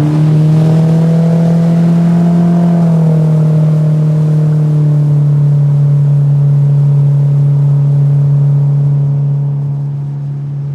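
Outboard motor pushing a small jon boat across the water at a steady running throttle; its pitch dips slightly a few seconds in, and it eases off near the end.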